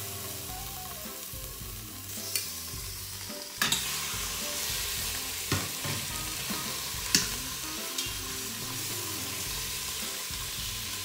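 Beef stew meat sizzling as it sears in hot oil in an Instant Pot's stainless steel inner pot on sauté mode, the sizzle swelling as more pieces go in. Several sharp clinks of metal tongs against the pot, the loudest about seven seconds in.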